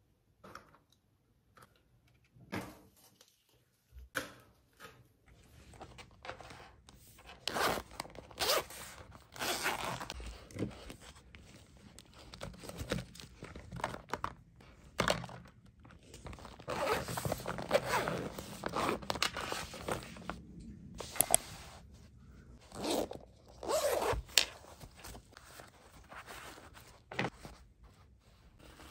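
Zippers on small pouches being pulled open and shut, with irregular thunks, clicks and rustling as plastic travel bottles and pens are handled and packed.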